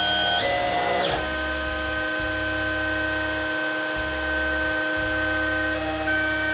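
CNC router running: the VFD-driven spindle whines steadily while the axis stepper motors drive the 3 mm bit through short moves into pine. Their tones shift pitch about half a second in, again around a second, and near the end, over a low hum that stops and starts every second or so.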